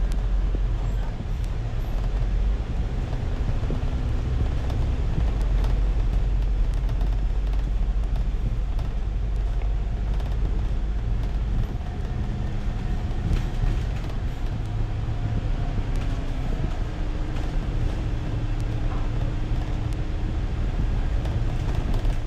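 Inside a moving city bus: steady engine and road rumble in the cabin, with a faint tone over it. The low rumble shifts about halfway through.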